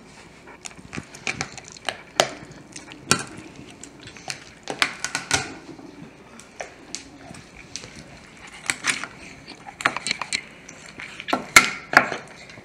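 Knife cutting up a rabbit carcass on a cutting board: irregular clicks and knocks of the blade against the board.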